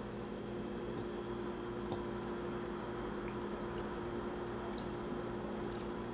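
Steady low hum of room or appliance noise with a faint high whine, and one faint click about two seconds in.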